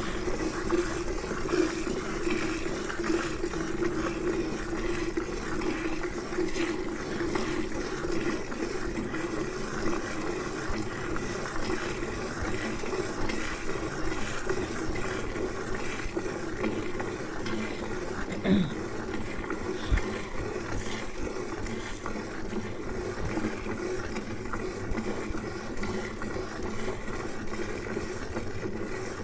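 A cow being milked by hand with both hands: streams of milk squirting into a pail in a steady, continuous liquid hiss.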